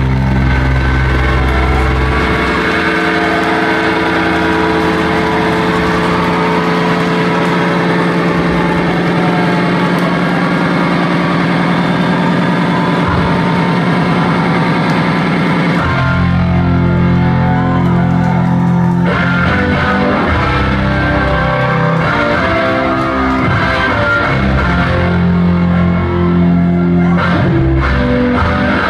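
A live rock band playing, with electric guitar to the fore. The bass drops out after about two seconds, leaving guitar, and comes back in about halfway through.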